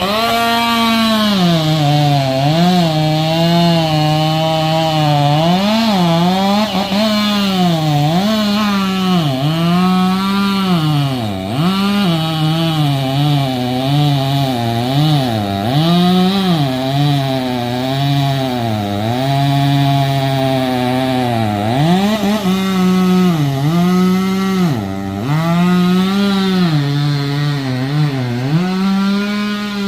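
Chainsaw cutting into a tree trunk, its engine pitch sagging under load and picking back up again and again as the chain bites into the wood.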